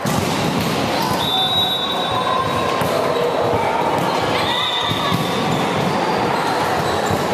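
Echoing sports-hall noise during an indoor volleyball rally: a steady wash of distant voices and court noise, with a few brief high squeaks.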